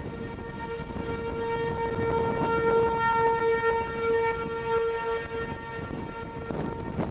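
Outdoor civil-defense warning siren sounding a single steady tone that swells and then fades away about five seconds in, the alert sounded for an approaching tornado, heard over low wind noise.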